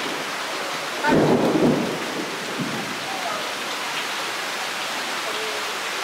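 Heavy rain falling steadily, with a short, loud rumble of thunder about a second in.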